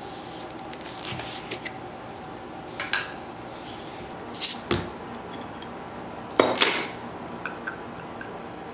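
Scattered taps, clicks and rustles of takeout packaging and tableware handled on a table: a paper lid pulled off a small plastic cup, cardboard box flaps, and knocks of a dish or glass set down. The loudest is a short clatter about six and a half seconds in.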